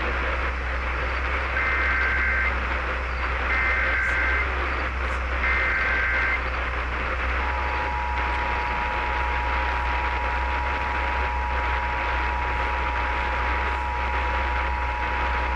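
Emergency Alert System header received over a radio: three roughly one-second bursts of two-tone data screech (the SAME header), then the two-tone EAS attention signal coming in about halfway and holding steady for about eight seconds, announcing an alert (here a Required Monthly Test). Steady static hiss and low hum lie under it all.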